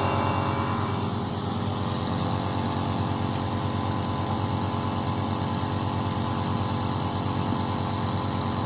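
A small motor hums steadily with a fine, even pulsing and a faint high whine.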